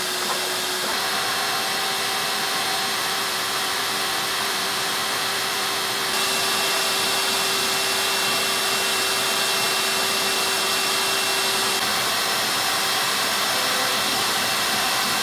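The vacuum motor of a CNC router's vacuum table runs steadily, drawing air to hold a T-shirt flat while a fabric marker draws on it. It makes a constant whooshing hum with a faint steady whine.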